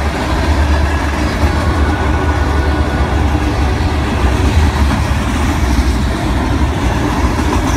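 Freight cars rolling past at close range: a steady rumble and rattle of steel wheels on the rails.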